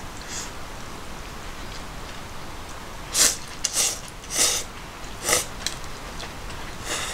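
Someone slurping chilled ramen noodles (hiyashi chuka): a quick run of about five short, airy slurps starting about three seconds in, and one more near the end.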